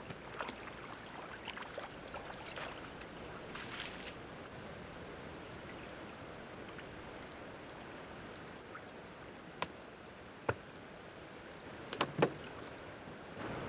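Water splashing as fish pieces are rinsed by hand in a shallow creek, over the creek's soft steady trickle. The splashing is busiest in the first few seconds, and a few sharp knocks come near the end.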